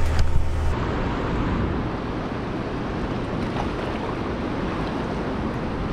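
A low steady hum cuts off under a second in. After that comes a steady rush of outdoor noise: wind buffeting the microphone over fast-moving river water.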